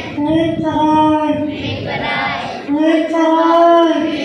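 A high, childlike puppet voice, put on by the puppeteer at the microphone, singing two long held notes with shorter sung sounds between them.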